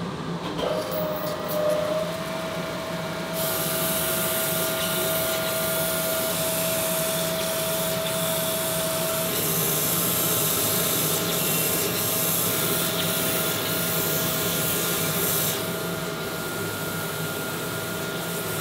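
Crankshaft grinding machine finishing a main bearing journal on an Audi RS4 crankshaft, grinding the hardened steel to its final size. The machine runs with a steady hum and tone, and the hiss of the wheel grinding the journal starts about three seconds in and stops about three seconds before the end.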